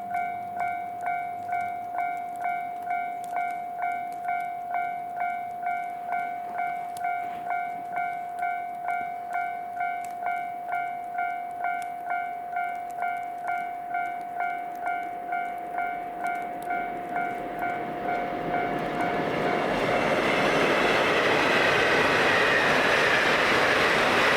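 Japanese level-crossing alarm bell ringing in a steady repeated ding, about one and a half strikes a second. Near the end the diesel limited express Ōzora approaches and passes, and its rushing rail noise swells over the bell.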